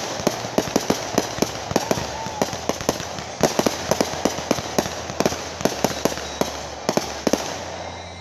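Fireworks going off in a rapid string of sharp bangs, about three or four a second, as gold shells burst overhead. The bangs stop a little before the end.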